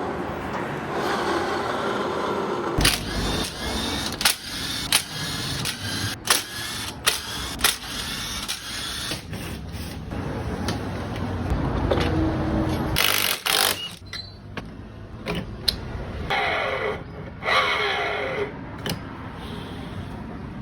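Mechanical work on a scooter's belt transmission: a steady running drone for the first three seconds or so, then a string of sharp metal clicks and clanks of tools and parts, with two short whirring bursts that fall in pitch near the end.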